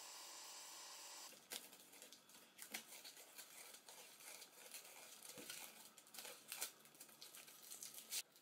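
Air spray gun hissing steadily, cut off about a second in; then the crinkling, scratching and tearing of white tape being wrapped around a metal pipe by hand, with scattered small clicks.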